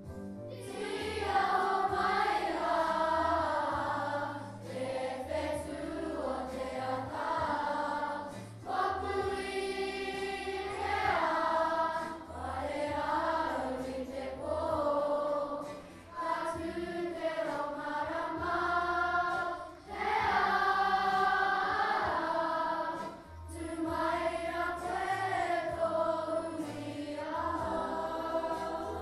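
A group of children singing together as a choir, the song moving in phrases a few seconds long with brief breaks between them.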